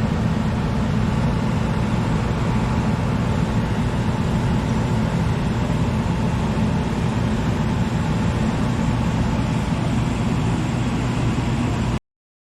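Gas furnace running: a steady rush of blower air with a low hum, cutting off suddenly near the end.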